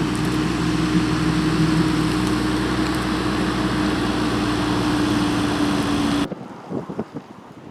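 Tractor engine running steadily with a strong held tone. About six seconds in it cuts off abruptly, leaving wind buffeting the microphone.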